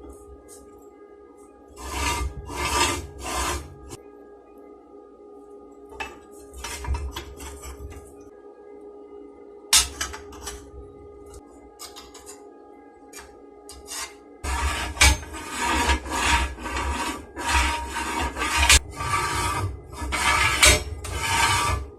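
Hand file rasping on a steel workpiece in repeated back-and-forth strokes. There are short spells of strokes at first, then a long, steady run of filing near the end.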